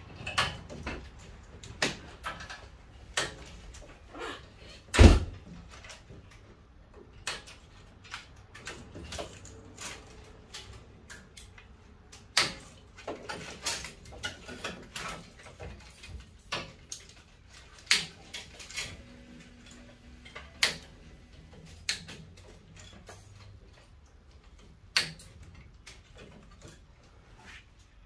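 Wire cutters snipping and pulling wiring out of a furnace's sheet-metal cabinet: an irregular scatter of sharp clicks and small knocks, with one heavier knock about five seconds in.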